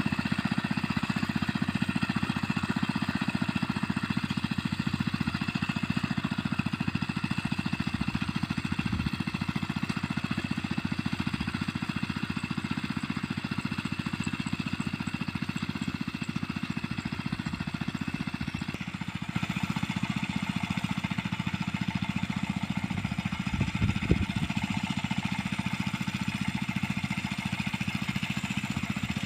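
Small engine of a mini rice-paddy tiller running steadily, with one brief knock about two-thirds of the way through.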